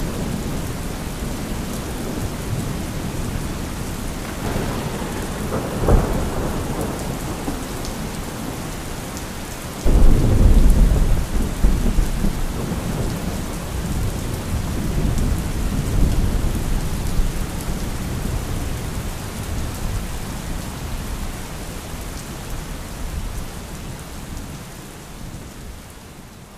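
Thunderstorm: steady rain with a sharp thunder crack about six seconds in, then a loud thunderclap about ten seconds in that rumbles on for several seconds and slowly dies away. The storm sound fades down near the end.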